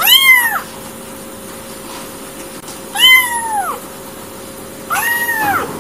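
A kitten meowing three times, a high call that rises and falls in pitch: one at the start, one about three seconds in and a shorter one near the end.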